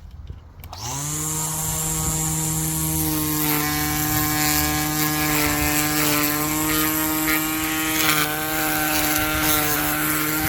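20V cordless electric string trimmer spinning up about a second in, then running at a steady pitch with a hiss from the whirling line as it cuts along an edge.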